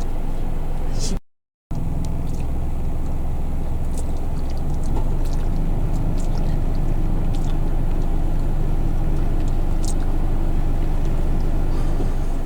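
Steady low hum of a car's engine idling, heard inside the cabin, with a brief dropout to silence about a second in. A few faint, short high ticks sound over it.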